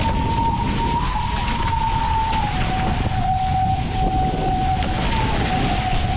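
Nacra 15 FCS catamaran's foils humming at speed, a steady whine that starts high, rises slightly about a second in, drops to a lower pitch about two and a half seconds in and briefly rises again near five seconds. The higher pitch marks the boat at its top speed of about 21–22 knots. Wind noise and rushing water underneath.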